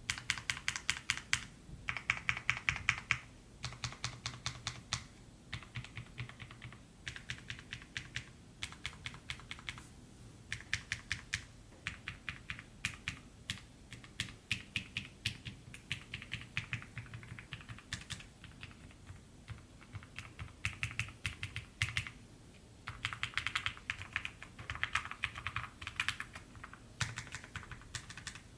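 IQUNIX MG65 Pro low-profile aluminium mechanical keyboard being typed on in quick runs of keystrokes, broken by short pauses, with a creamy sound.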